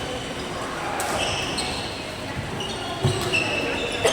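Court shoes squeaking on an indoor court floor during a badminton rally: several short, high squeals, with a sharp racket hit on the shuttlecock about a second in.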